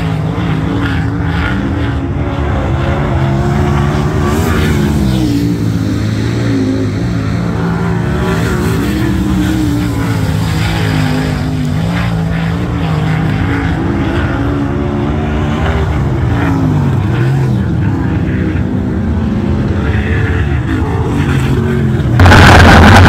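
Winged sprint car's engine running laps on a dirt oval, its pitch rising and falling again and again as it speeds up and slows through the turns. Near the end the sound jumps suddenly to a much louder, closer engine.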